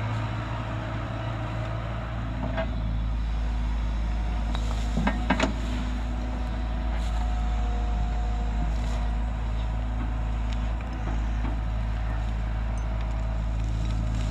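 Caterpillar 312C tracked excavator's diesel engine running steadily as it digs a trench, with a few sharp knocks about five seconds in.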